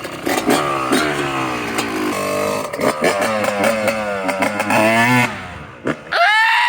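Dirt bike engine revving hard as it accelerates away, its pitch climbing in several rising sweeps through the gears, then dropping off abruptly about five seconds in. A short shout follows near the end.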